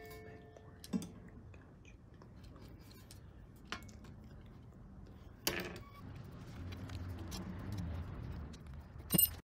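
Metal handling noise as a controller board is bolted to a sheet-metal bracket: a few separate light clicks and knocks of the bracket, bolts and an Allen key, the last and loudest about nine seconds in with a brief metallic ring.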